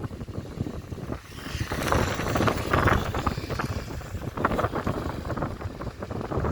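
Wind buffeting the microphone over the rumble of an Airbus A321 jet airliner's engines, with a faint high engine whine about two seconds in.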